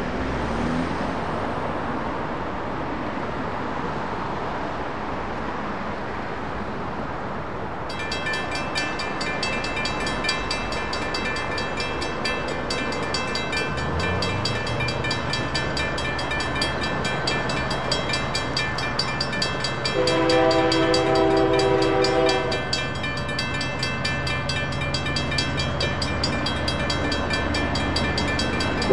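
Road traffic noise, then a railroad grade-crossing bell starts ringing in rapid repeated strikes about a quarter of the way in as the crossing activates, and a low steady hum comes in around the middle. About two-thirds through, the horn of the approaching freight's lead locomotive, a Union Pacific EMD SD59MX, sounds one blast of about two seconds.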